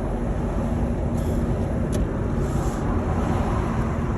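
Steady road and engine noise of a car heard from inside its moving cabin, with a light click about two seconds in.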